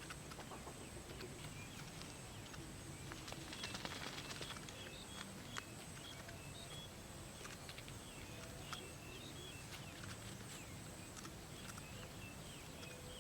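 Faint outdoor ambience with short, scattered bird chirps and a few small clicks.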